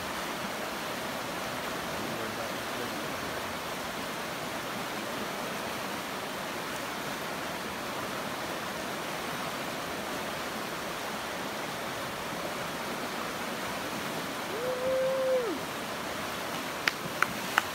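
River rapids rushing steadily. About fifteen seconds in, a short held tone rises and falls over the water, and a few sharp clicks come near the end.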